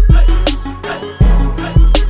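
Background music with a beat: a deep sustained bass and sharp drum hits about every half second, under a melodic line.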